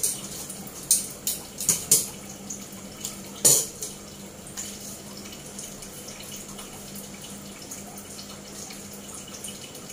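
A quick run of sharp clanks and knocks of steel cookware and tongs being handled in the first four seconds, then a steady hiss.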